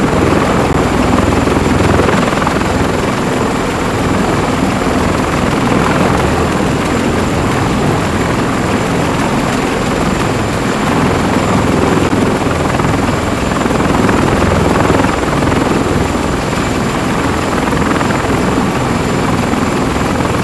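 CH-53E Super Stallion heavy helicopter hovering low and settling onto a ship's flight deck. Its rotor and three turboshaft engines make a loud, steady noise with a thin high whine on top.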